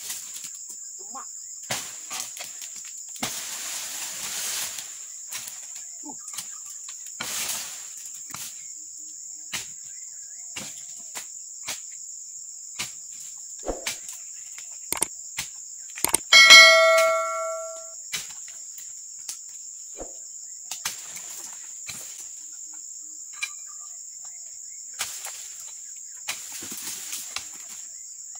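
Oil palm fronds being pruned with a dodos, a chisel blade on a long pole: scattered knocks of the blade on the frond bases and a few rustling bursts as cut fronds fall, over a steady high-pitched insect drone. About sixteen seconds in, a sharp metallic clang rings on for about a second and a half, the loudest sound here.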